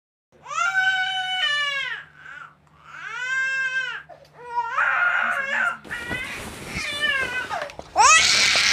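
A baby crying: a run of wailing cries with short breaths between them, turning louder and harsher near the end.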